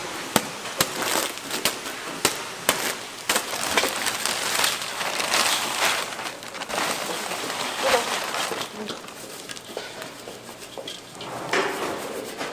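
A wooden stick pounding plastic bags of food to crush it into crumbs, sharp knocks about twice a second through the first few seconds. Then crumbs pour into a stainless-steel bowl, and gloved hands crackle and rustle as they crumble and toss them.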